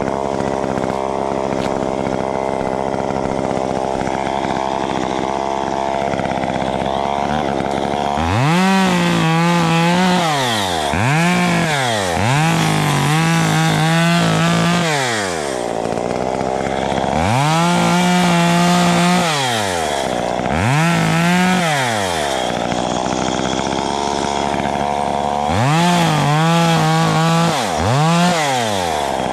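Stihl two-stroke chainsaw running steadily at a low speed, then from about eight seconds in revved to full speed again and again in short bursts, each held a second or two before dropping back.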